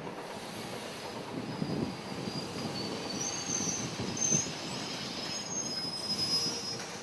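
Auckland SA/SD-class carriage train running past, its wheels giving off a shrill, wavering squeal that comes and goes in several high tones over a low rumble of the bogies on the track.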